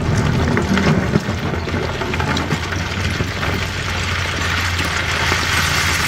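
CAT 320D excavator's diesel engine running steadily, with a few knocks in the first second or so.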